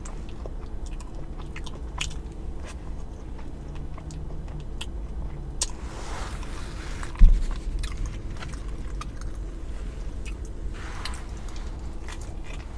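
Close-up chewing and biting of food, with many small wet mouth clicks. A single dull thump about seven seconds in.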